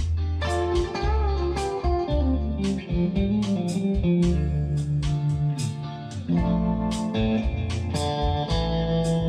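Background music: an electric guitar playing a melody over bass and a steady drum beat.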